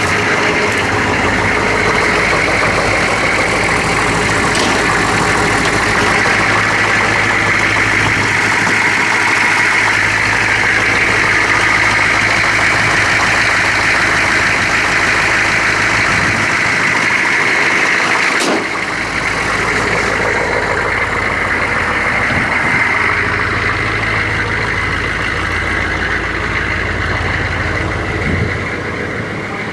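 1982 GMC Suburban's 6.2 diesel V8 idling steadily just after a cold start in freezing weather. A sharp click comes about eighteen seconds in, after which it runs a little quieter.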